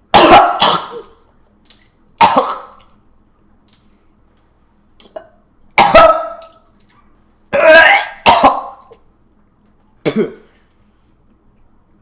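A man gagging and retching, about six loud heaves spaced a second or two apart, on a foul-tasting mouthful that he cannot bring himself to swallow.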